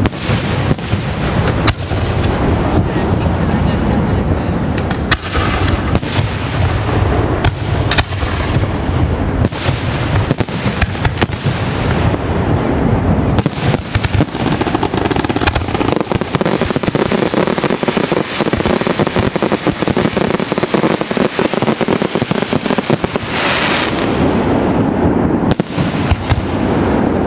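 Fireworks show in full barrage: a rapid, continuous run of shell bursts and crackling with overlapping booms, loud throughout, and a dense burst of crackle about 23 seconds in.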